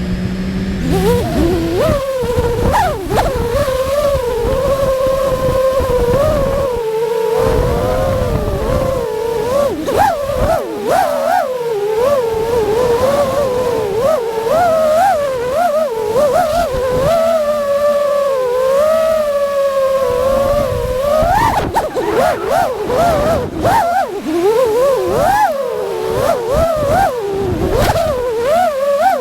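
FPV quadcopter's brushless motors whining in flight, their pitch rising and falling quickly and constantly with the throttle.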